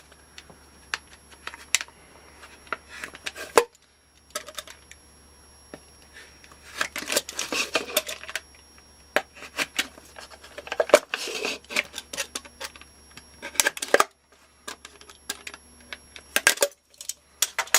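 A red plastic Solo cup being cut open: irregular clicks and crackles of the thin plastic, in several clusters.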